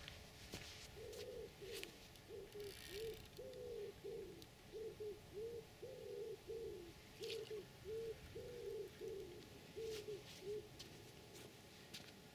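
A pigeon cooing, a run of low cooing notes in short repeated phrases, some sliding down in pitch, stopping a little before the end. A few faint clicks sound alongside.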